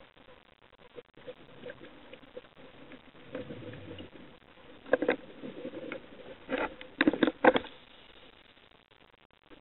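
Scuba diver's exhaled regulator bubbles heard underwater, bubbling in a few short bursts in the second half, over low steady underwater background noise.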